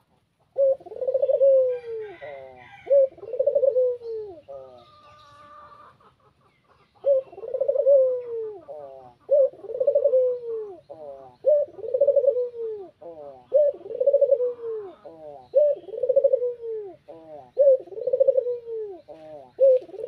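Barbary dove (puter) cooing over and over, each coo starting sharply and falling away, about one a second, with a pause of a couple of seconds around five seconds in.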